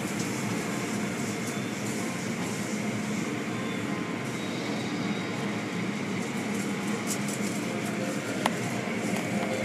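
Automatic car wash running, heard from inside the car: spinning cloth brushes and wash strips sweeping over the body and windshield with spraying water and a steady machinery hum. One sharp click comes near the end.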